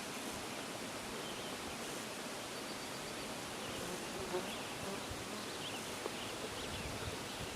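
Outdoor lakeside ambience: a steady hiss with a few faint, short, distant bird chirps in the second half and a soft knock about four seconds in.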